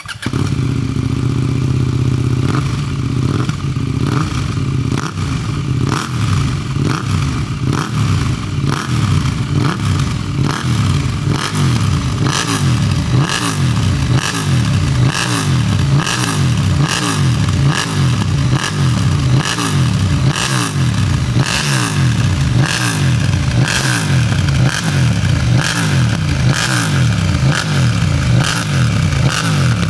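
2023 KTM RC 8C's parallel-twin engine through an Akrapovič full titanium exhaust, idling for a moment and then revved in repeated quick throttle blips, the revs falling back after each.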